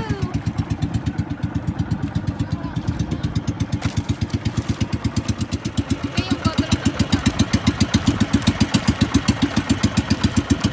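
Fishing boat's engine running steadily with an even, rapid pulse of about six beats a second, a little louder from about six seconds in.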